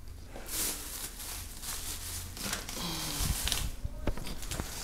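Rustling handling noise from a hand-held camera being moved about, with a few light knocks and clicks around three seconds in.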